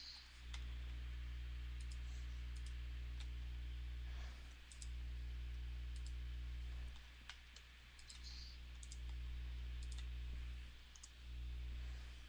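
Faint computer mouse clicks over a low steady hum that cuts out and back in several times, every two to four seconds.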